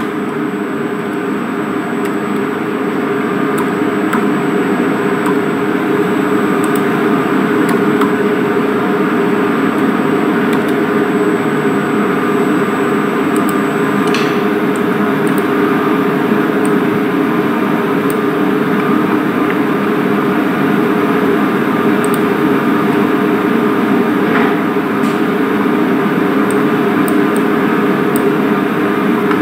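Steady machine hum, even and unbroken, with a few faint clicks.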